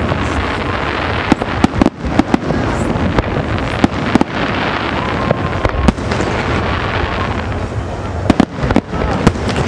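Aerial firework shells bursting over and over: many sharp bangs and crackles over a continuous rumble of explosions and echo.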